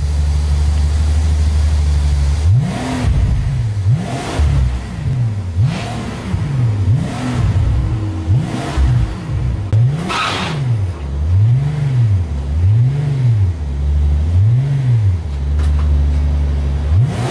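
Rolls-Royce Wraith's twin-turbo V12 breathing through a Mansory valved exhaust, idling and then revved over and over, each rev rising and falling back about every second and a half, before settling to idle again near the end.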